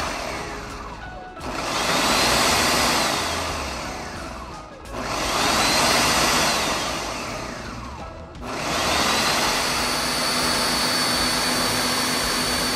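Ninja countertop blender motor churning a thick avocado-chocolate mousse mixture in pulses. Three times, about three and a half seconds apart, it spins up to a high whine, then winds down with a falling whine and briefly goes quiet. For the last few seconds it runs steadily at a constant high whine.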